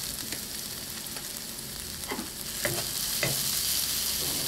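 Peppers, onions and garlic sizzling as they sauté in a hot pan, a steady hiss, with three short knocks about two, two and a half and three seconds in.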